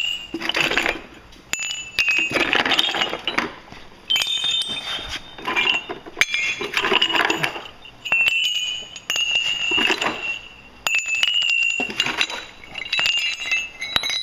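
Steel railway spikes and bolts being tossed down and clattering against one another, each throw landing in a burst of sharp metallic clinks that ring briefly, repeating every second or two.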